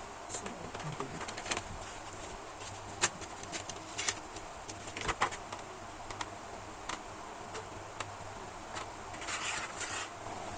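Scattered light clicks and taps of small screws and a screwdriver being handled on a laptop's plastic bottom case. A short scraping rustle comes near the end.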